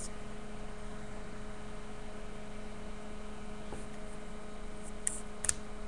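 Steady electrical hum, a few constant tones, with two short faint clicks near the end.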